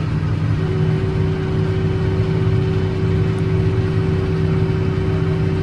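John Deere 7720 tractor's six-cylinder diesel running steadily while driving a hay baler through the PTO. A steady high whine drops out and returns about half a second in.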